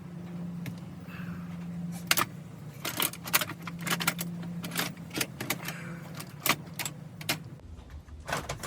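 Small metal parts and hand tools clicking and clinking as they are handled during chainsaw carburetor work: many short, irregular sharp clicks over a low steady hum.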